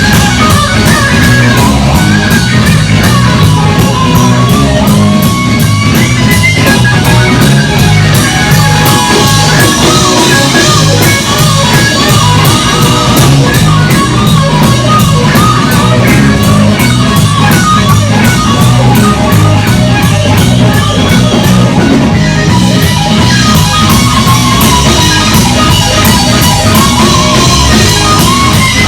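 Live rock band playing a blues-boogie cover, with an electric guitar lead over a steady drum beat and bass.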